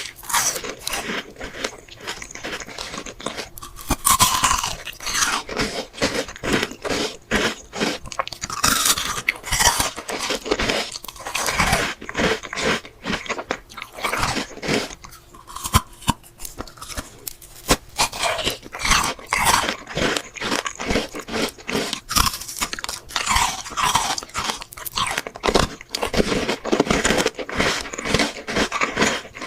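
Close-miked bites and chewing of fruit, a dense, irregular run of crunching throughout.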